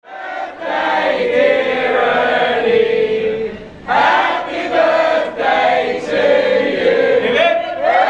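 A group of party guests singing a birthday song together in chorus, starting abruptly, with a short break a little under four seconds in.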